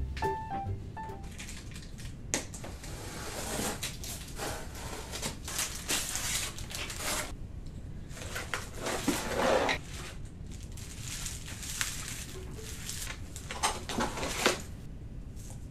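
Cardboard box and plastic packaging being handled while a parcel is unpacked by hand: the box flaps and bubble wrap rustle and crinkle in irregular bursts, busiest in the first half and again briefly near the end.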